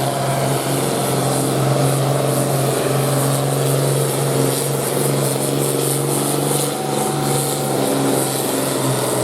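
Farm tractor engine running under load at a steady, high pitch, holding its note for the whole stretch.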